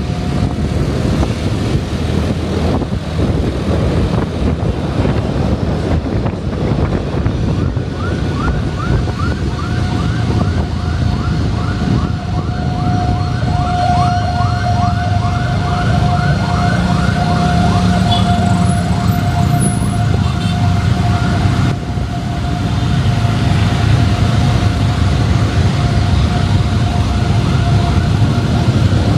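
A siren sounds through street traffic: fast, repeated rising sweeps about twice a second start about a quarter of the way in, then give way to a steady held tone near the end. Underneath is a constant rumble of traffic and wind.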